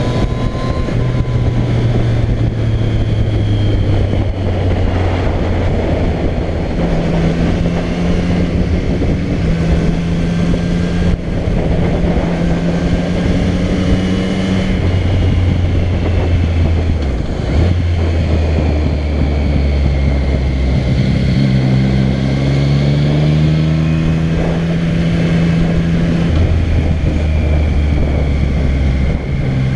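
Yamaha MT-09 motorcycle's three-cylinder engine heard from the rider's seat while riding a twisty road, its pitch holding, then stepping and gliding up and down every few seconds with gear changes and throttle through the bends. Steady wind rush sits under it.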